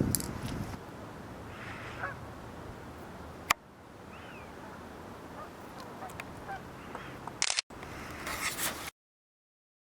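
Canada geese honking faintly and intermittently over a steady rush of wind, with ducks among them. A sharp click about a third of the way in and another with a brief dropout later mark joins in the patched-together recording, and the sound cuts off to silence near the end.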